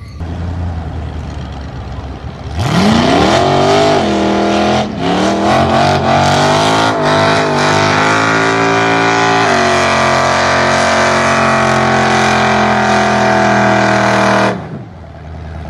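A car engine idling low, then revving up sharply about two and a half seconds in and held at high revs while the rear tyres spin in a long smoky burnout, with two brief dips in revs. The revs cut off abruptly near the end.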